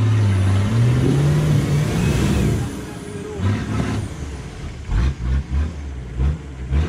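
Off-road 4x4 engine revving under load, its pitch climbing for a second or two and then falling away. It is followed near the end by a series of short throttle blips.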